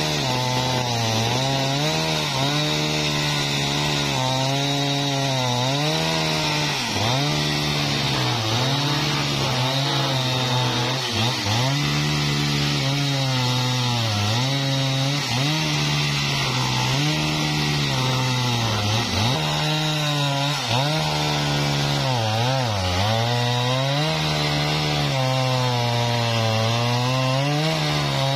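Husqvarna 395XP chainsaw's 94 cc two-stroke engine running at high revs as it rips lengthwise along a sengon log. The pitch dips briefly again and again as the chain loads up in the cut.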